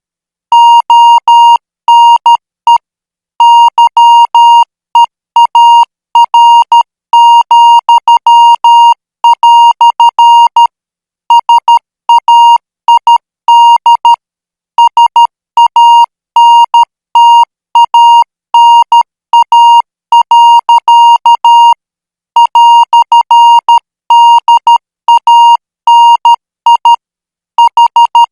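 Morse code practice signal: a single steady beep tone keyed on and off in short dots and longer dashes at 12 words per minute, with brief gaps between characters and longer gaps between words.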